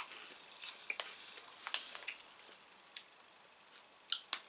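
Chewing crunchy jalapeno cheese curls: irregular soft crunches and small mouth clicks, with two sharper clicks close together near the end.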